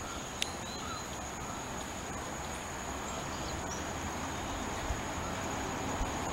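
Distant diesel freight locomotive approaching, a low rumble slowly growing louder, under a steady high-pitched insect drone.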